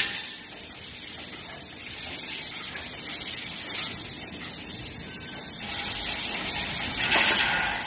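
Laser pipe cutting machine running: a steady hiss with a louder hissing surge about seven seconds in.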